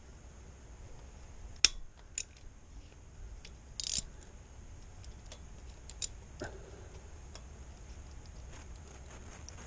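Hand tools working the 8 mm bolts of a motorcycle oil filter housing cover: scattered metal clicks and taps, the sharpest about one and a half seconds in, a short scrape near four seconds, and faint small ticks after that.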